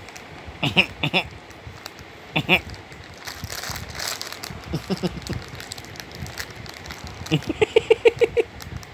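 A baby giggling in a quick run of short, high pulses near the end, after a few short vocal squeals earlier on. A plastic snack packet crinkles as it is squeezed in the baby's hands.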